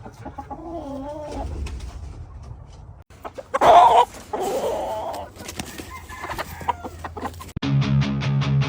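Gamefowl roosters clucking and crowing, the loudest crow about three and a half seconds in. Music with guitar comes in near the end.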